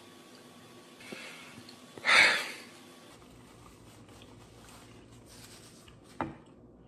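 A single short, sharp breath through the nose, a sniff or snort, about two seconds in, with a small click near the end over quiet room tone.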